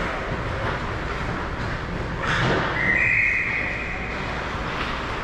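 Ice hockey rink ambience with a steady hubbub, a sharp knock a little past two seconds in, then a referee's whistle blown once for about a second and a half, its pitch stepping up slightly.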